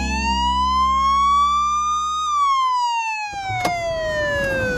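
Police car siren wailing: its pitch rises slowly for about two seconds, then falls more slowly.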